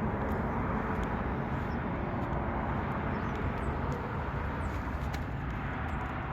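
Steady outdoor background noise: an even rumbling hiss with a few faint clicks, and no engine running.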